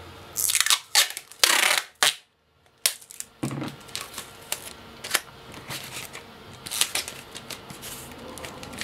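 Cardboard and packing tape being handled on a cutting mat: two short rasping scrapes in the first two seconds, then, after a brief gap, scattered light clicks and taps as the taped cardboard package is handled and lifted.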